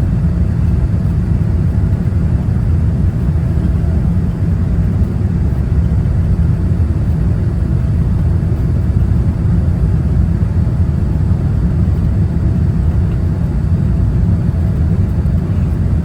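Steady low rumble of a Boeing 787-9 in flight, heard inside the passenger cabin during the descent: engine and airflow noise.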